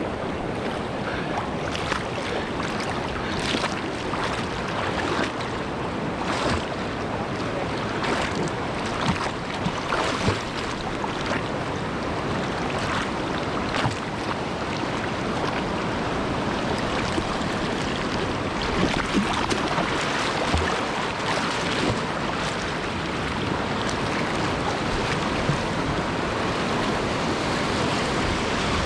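Rushing whitewater of a river running high, a steady noise with scattered sharp splashes, most of them in the first half.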